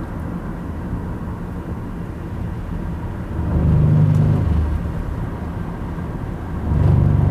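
Car driving on the road, heard from inside: a steady low rumble of engine and tyres, swelling louder twice, a little after three seconds in and again near the end.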